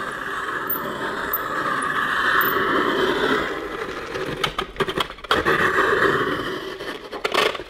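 The blade of a hand-cranked adjustable circle cutter scraping and squeaking as it is turned round through 3/16-inch foam core, working deeper with each turn toward cutting the disc free. The scraping breaks off briefly with a few sharp clicks about two thirds of the way in, resumes, then fades with more clicks near the end.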